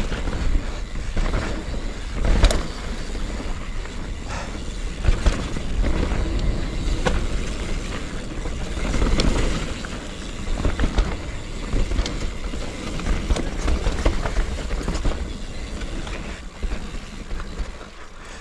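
Mountain bike ridden fast down a dirt singletrack: wind rumbling on the microphone and tyres rolling on the dirt, with scattered clicks and knocks from the bike over bumps.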